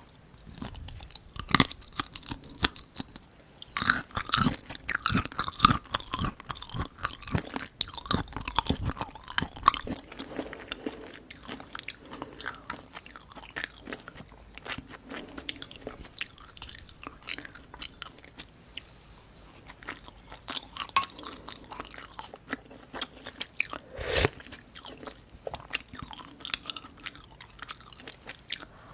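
Close-miked chewing and crunching of a Korean home meal, eaten without talking: dense wet crackle and bites through the first ten seconds, then sparser chewing, with a sharp louder click near the end.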